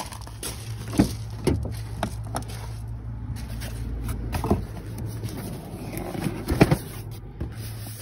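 A car door and a boxed alarm bell box being handled on the car seat: a few sharp knocks and clunks, the loudest about a second in and near the end, over a steady low hum.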